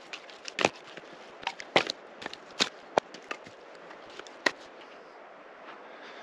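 Pieces of split firewood knocking together as they are picked up into an armload: a run of irregular sharp wooden clacks that stops about five seconds in.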